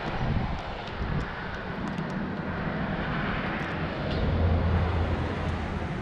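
Low engine drone of something passing at a distance, swelling to its loudest about four seconds in and then easing off.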